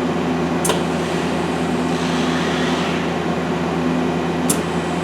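Okuma LB-200MW CNC lathe and its bar feeder running with a steady mechanical hum. Two short sharp clicks come about a second in and near the end.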